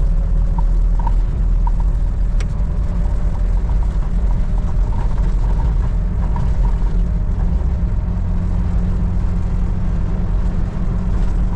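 Motor vehicle running with a steady, loud low engine rumble and hum.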